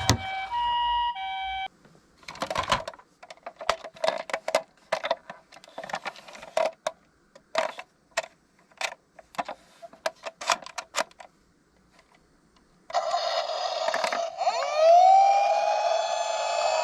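A few short electronic beeps, then several seconds of irregular light clicking and clattering from toy minicars, then an electronic emergency-vehicle siren starts about thirteen seconds in and sweeps up in pitch.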